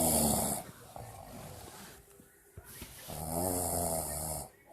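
A sleeping person snoring: two loud snores about three seconds apart, with softer breathing between them.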